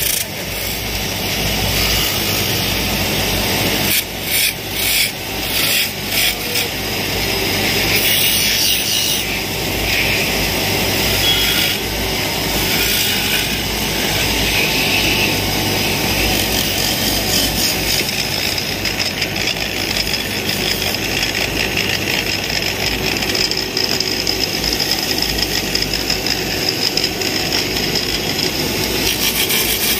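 Wood lathe running while a hand-held turning tool cuts a spinning block of wood, a steady motor hum under the hiss and scrape of shavings coming off. The cutting noise breaks off briefly several times about four to seven seconds in.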